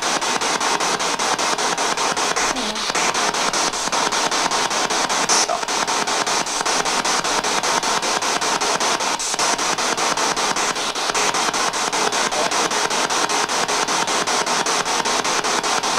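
Spirit box radio sweeping rapidly through stations: a steady hiss of static chopped into quick, evenly spaced pulses. Near the end comes a fragment that the ghost hunters read as the name "Patrik".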